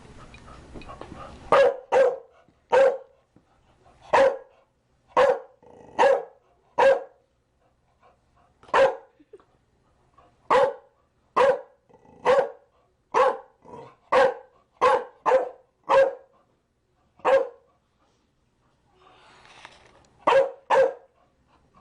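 A Chow Chow barking in single, separate barks, about twenty of them, mostly a half second to a second apart. After a gap of a couple of seconds near the end come two quick barks in a row.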